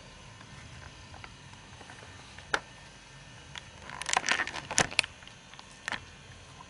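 Handling noise of a camcorder held against bedding: scattered clicks, and a short burst of crackling rustle about four seconds in, over a low steady hum.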